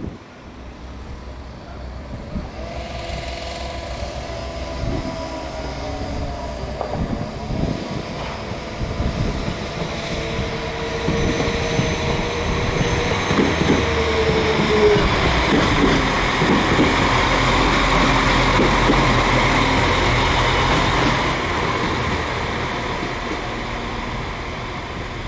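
West Midlands Railway Class 196 diesel multiple unit moving through the station, growing louder over about fifteen seconds and then easing off, with rumble and wheel noise under several pitched whines, one of which slides down in pitch and stops about halfway through.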